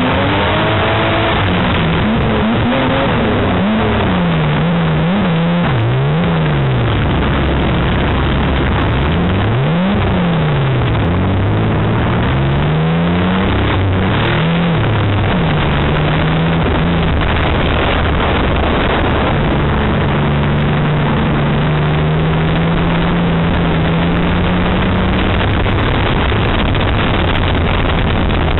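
A banger racing car's engine, heard from inside the car, revving up and dropping again and again as the driver accelerates and lifts through the bends. It then holds a steadier pitch for several seconds on a straighter stretch, over a constant rush of road and body noise. Loud.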